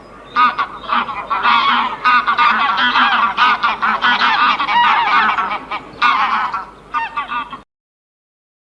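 A flock of waterfowl calling over one another in a dense chorus of honks. It stops abruptly near the end.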